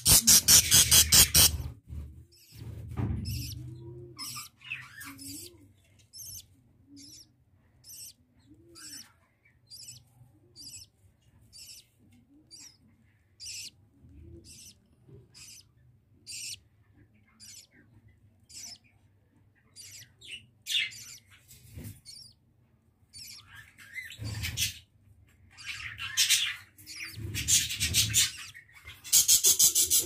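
Budgerigars chirping in a nest colony: a long, even run of short high cheeps, roughly one or two a second. A loud, harsh rattling burst of bird noise comes in the first second or so and again near the end.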